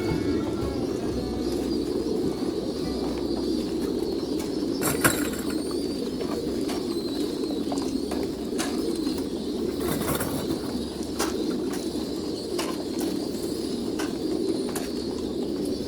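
Many domestic pigeons cooing together, a dense, steady low chorus, with a few sharp clicks scattered through it; the loudest click comes about five seconds in.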